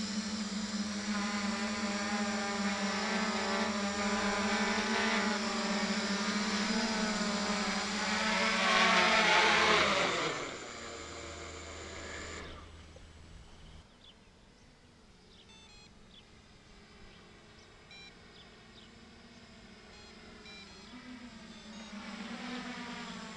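Hexacopter's six electric motors and propellers whirring steadily in a hover, growing loudest as it comes close. About ten seconds in they spin down and fall silent as it lands. Near the end the whirr rises again as the craft flies overhead.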